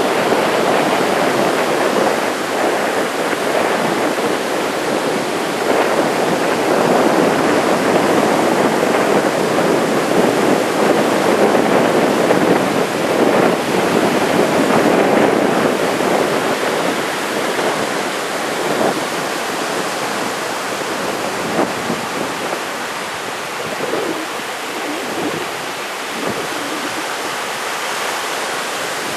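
Large typhoon swell breaking on a sand beach: a continuous rush of surf that swells louder for a while and eases off near the end.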